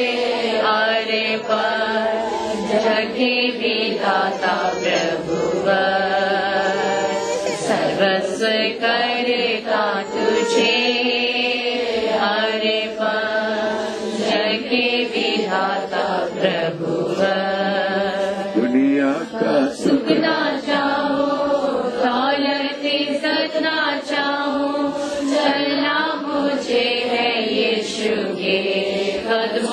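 A congregation's voices chanting together in worship: a continuous mass of overlapping voices with music underneath.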